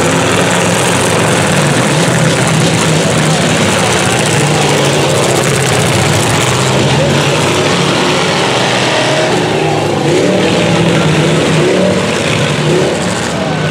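Engines of several demolition-derby vans and pickup trucks running loud, their revs rising and falling as they push against one another in the mud, with voices underneath.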